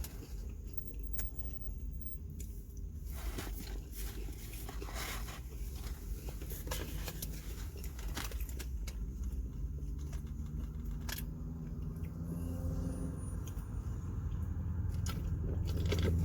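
Close-up eating and food-packaging noises, scattered clicks and crackles over a steady low car-engine hum. A deeper pitched engine drone grows louder over the last several seconds.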